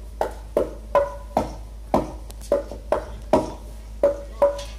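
Drum kit struck with sticks in single, unevenly spaced hits, about two to three a second, each with a short ringing pitch, played through a large stage sound system during a sound check.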